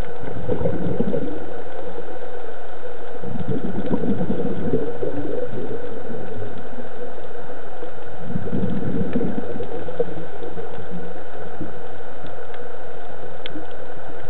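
Scuba diver's exhaled bubbles from the regulator, breaking out in three bubbling bursts a few seconds apart over a steady underwater hiss.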